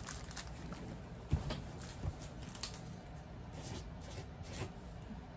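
Handling and rummaging sounds: paper rustling and small objects clicking and knocking, with a soft thump about a second and a half in.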